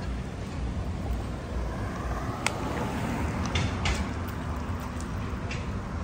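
City street traffic noise: a steady low rumble, with a vehicle passing and swelling through the middle, and a few sharp clicks.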